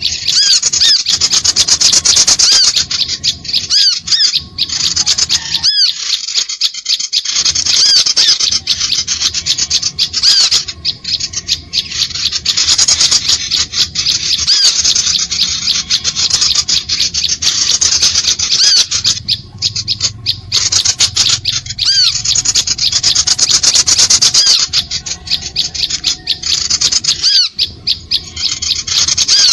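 Bird-lure recording of small birds: a dense, continuous chatter of rapid, high-pitched scolding calls, used to draw small birds in.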